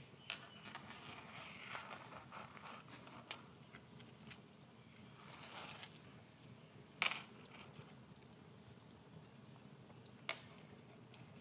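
A wood fire crackles faintly with scattered small clicks while a cat rolls and shifts on a hardwood floor. Its metal collar tag clinks sharply about seven and ten seconds in, the second as the cat gets up.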